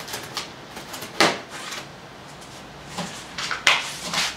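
Packing material and cardboard rustling and scraping as it is handled in a shipping box: a series of short swishes, the loudest about a second in and around three and a half seconds in.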